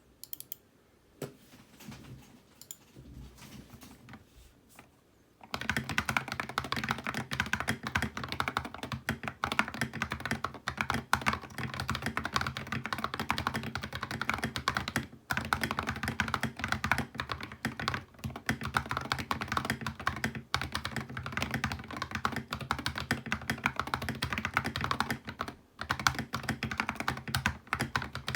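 RK84 mechanical keyboard with ceramic keycaps being typed on. A few scattered key presses come first, then fast, continuous typing starts about five seconds in, broken by two short pauses.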